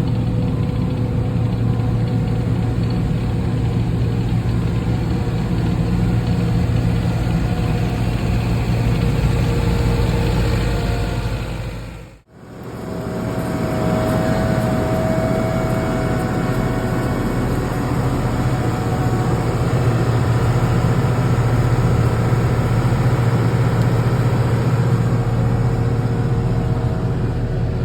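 Engines of heavy asphalt-paving machinery running steadily with a deep hum. The sound dips out briefly about twelve seconds in, then comes back the same.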